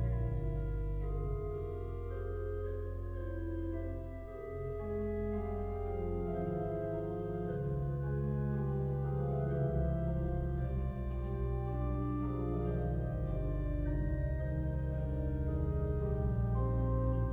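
Organ playing a passacaglia: full, sustained chords and moving upper voices over a deep pedal bass.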